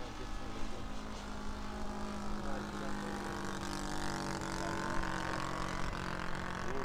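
Engine and propeller of a radio-controlled model Piper airplane in flight, a steady buzzing note that swells and bends in pitch as it passes about four to five seconds in.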